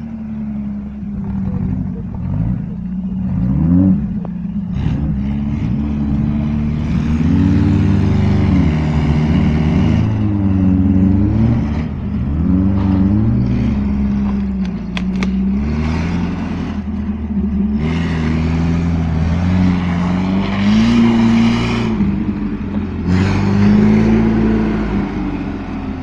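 UAZ off-roader's engine revving hard, its pitch climbing and falling again and again, as the vehicle sits stuck in deep mud and tries to drive out. Bursts of wheel-spin noise come through the revving twice, around a third of the way in and again past the middle.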